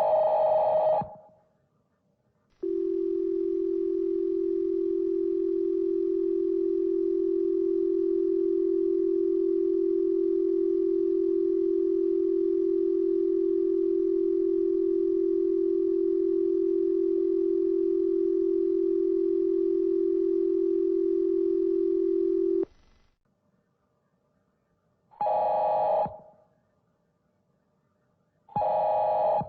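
Emergency Alert System signal slowed to 0.4x and pitched down. First the end of a SAME data burst, then the two-tone attention signal as a steady low dual tone for about 20 seconds, then two short end-of-message data bursts near the end.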